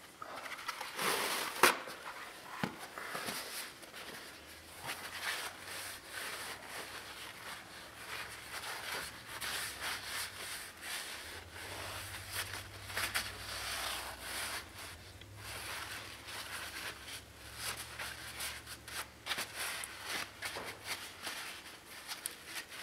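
Paper towel crinkling and rubbing over a greasy steel axle spindle in irregular wiping strokes, with a sharp snap about a second and a half in.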